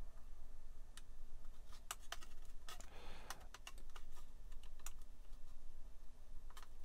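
Light, irregular clicks and taps of small plastic model parts being handled and pressed into place by hand, with a short scrape about three seconds in.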